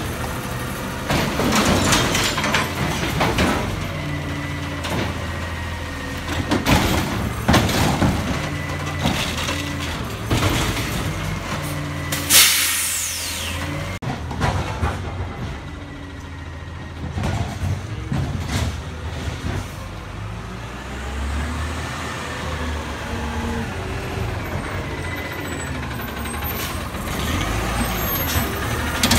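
Automated side-loader garbage truck at work: engine running while the arm tips a cart into the hopper with a string of bangs and knocks. A loud hiss of air brakes about twelve seconds in, then the truck pulls up with its engine pitch rising and falling.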